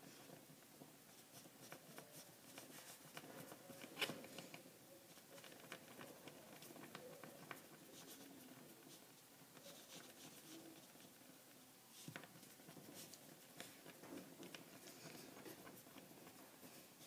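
Faint rubbing and light taps of fingertips rolling a thin snake of polymer clay on a wooden tabletop, with a sharper knock about four seconds in and another about twelve seconds in.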